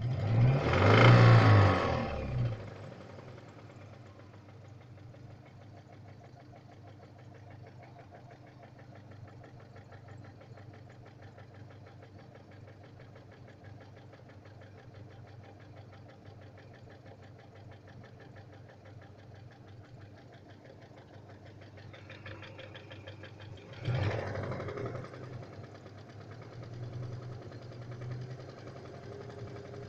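Great Wall GW491QE four-cylinder petrol engine revved sharply at the start, then idling with a steady, rapid knock, the engine knock the owner is recording; it is revved again about 24 seconds in and briefly near the end.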